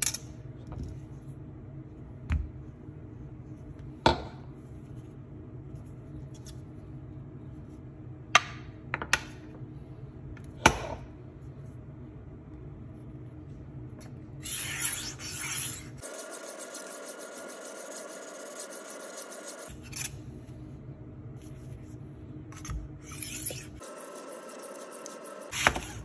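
A Tumbler rolling knife sharpener's diamond disc is rolled back and forth along a Victorinox kitchen knife's edge, giving a rough rasping grind in stretches through the second half. Before that come a few sharp, isolated knocks.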